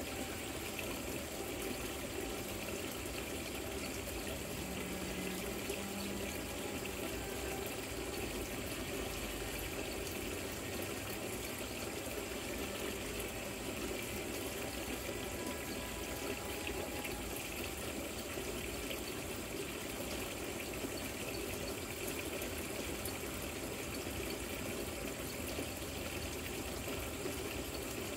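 Artificial rock waterfall fountain trickling and splashing steadily.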